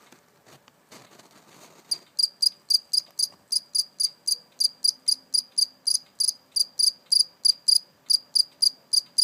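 A cricket chirping in a steady, even rhythm of about three to four high, clear chirps a second, starting about two seconds in after some faint rustling.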